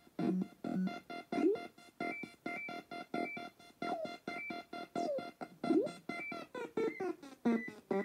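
Circuit-bent Palitoy Merlin electronic game sequencing rapid staccato electronic bleeps, about five a second, over a held high tone, with notes sliding up and down in pitch from its pitch modulation and faster sweeps near the end.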